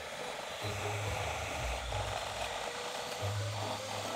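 Quiet background music with a low bass note that comes and goes, over a faint steady hiss.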